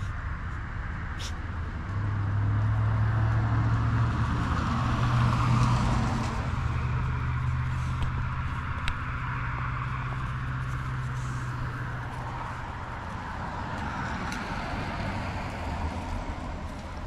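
Engine running: a steady low hum that shifts slightly in pitch and fades out about twelve seconds in, with a few faint clicks.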